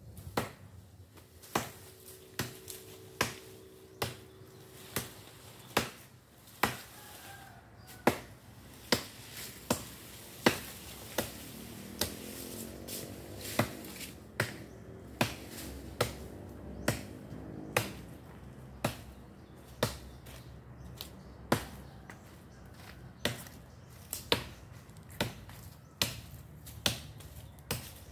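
Repeated sharp strikes against a tree trunk, a little over one a second in an even rhythm, like a blade hacking at the wood.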